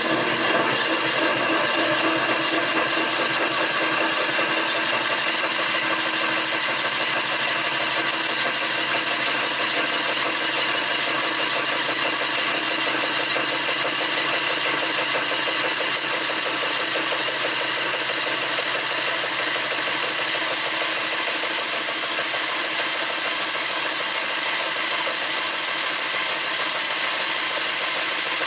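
Homemade mini band sawmill driven by a treadmill motor, running steadily at slow speed as its blade cuts through wood: an even, unchanging mechanical whir with a sawing hiss.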